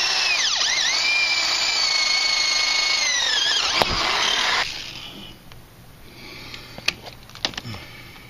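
Power drill with a spade bit boring through a wooden plate. The motor whine dips briefly in pitch under load about half a second in, then runs steady, winds down and stops about four and a half seconds in. A few light knocks and clicks follow.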